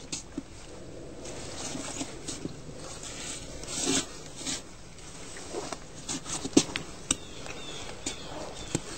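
Irregular crunches and scrapes in snow, about a dozen short ones spread unevenly, the loudest about four seconds in and again past six and a half seconds.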